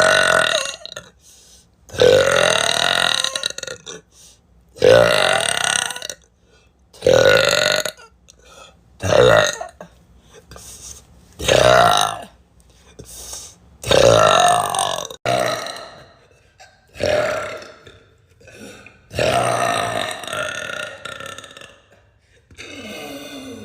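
A string of about ten loud, drawn-out burps, one after another every two seconds or so, each lasting a second or two.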